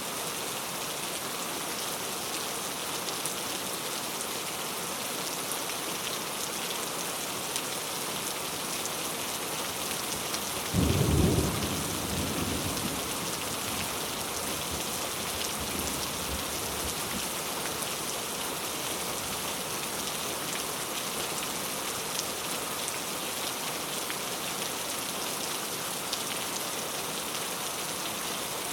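Steady rain falling. About eleven seconds in, a clap of thunder booms and rumbles away over a few seconds.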